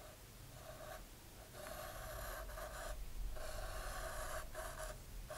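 Wooden applicator stick scraping and rubbing epoxy along the inside of a rocket body tube, in a series of strokes about a second long with short pauses between.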